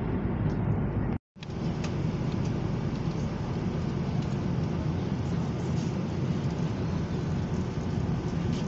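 Steady low rumble of airliner cabin noise inside an Airbus A330. The sound cuts out completely for a moment just over a second in, then carries on unchanged.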